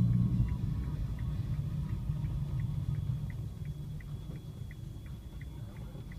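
Car engine and road rumble heard from inside a taxi's cabin as it moves slowly through traffic, with a thump right at the start. A light, regular ticking about three times a second runs under the rumble.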